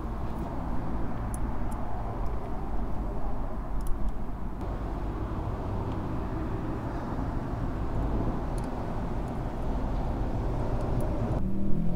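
A vehicle engine runs in a steady rumble, with a few light clicks over it. Near the end the sound changes abruptly and an engine revs, its pitch rising.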